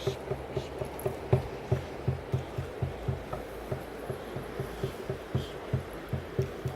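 Hand drum beaten in a steady rhythm, about three deep beats a second, each ringing briefly.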